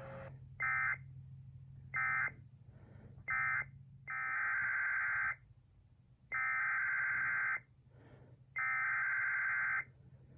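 Emergency Alert System SAME digital data bursts, a harsh buzzing two-tone warble: three short end-of-message bursts about a second apart, then three longer header bursts of about a second each. They mark the end of one severe thunderstorm warning and the header of the next.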